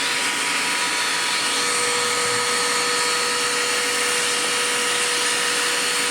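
Dirt Devil Quick Power vacuum cleaner running steadily: a continuous motor rush with thin whining tones over it, and a lower steady hum that joins about a second and a half in.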